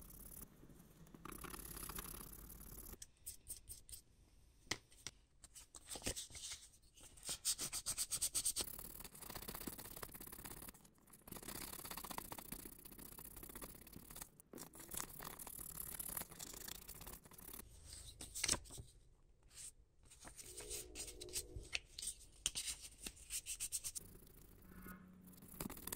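Close-up rubbing, scraping and sharp little clicks from hand work on a die-cast toy truck's small parts, in short clips cut together. A brief hum sounds about 21 seconds in.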